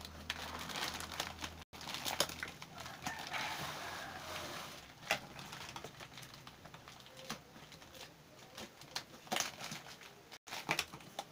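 A cardboard box being handled and turned over: rustling and scraping of its taped flaps and plastic wrapping, with sharp knocks and taps of the box against the table.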